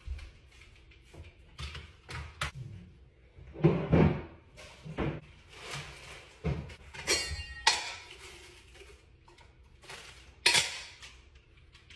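Kitchen clatter from cupboard doors, drawers and dishes being handled: a string of separate knocks and clacks, the loudest about four, seven and ten seconds in.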